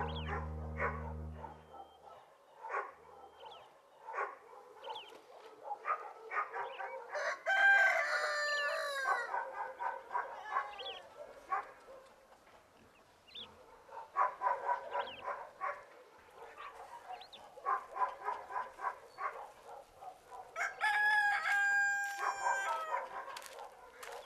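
Farmyard chickens: hens clucking throughout, and a rooster crowing twice, once about a third of the way in and again near the end.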